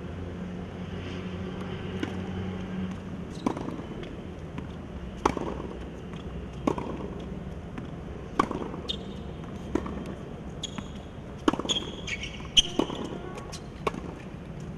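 Tennis rally on a hard court: a string of sharp pops from the racket striking the ball and the ball bouncing, about one every second and a half, over a steady low hum.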